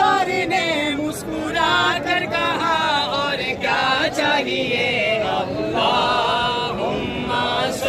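A group of men's voices chanting or singing together without instruments, in long, wavering held notes.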